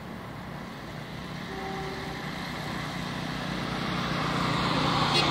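Locomotive approaching on the track: a steady low engine hum under rolling noise that grows steadily louder throughout.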